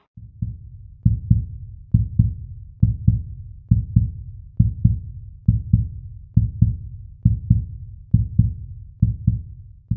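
A low, heartbeat-like beat: pairs of deep thumps repeat steadily a little faster than one pair a second, as a closing music track.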